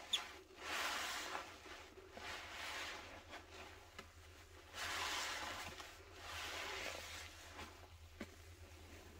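A porous sponge loaded with thick pine-cleaner suds being squeezed and kneaded by hand, making wet squelching and fizzing foam in four slow swells. A sharp click comes just after the start.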